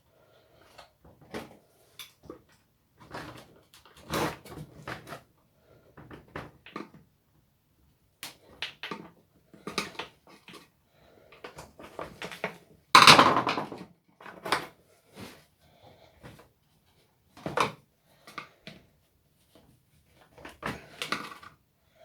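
Irregular clicks, knocks and light rattles of small strimmer engine parts being handled and fitted back together by hand on a workbench, with one louder knock and scrape a little past halfway.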